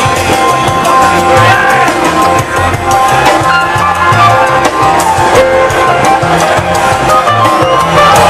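Rock band playing live and loud, with a moving bass line, steady drum hits and sustained guitar tones.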